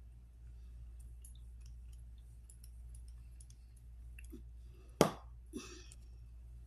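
Quiet small clicks and taps as makeup items are handled, with one short, loud burst about five seconds in and a weaker one just after.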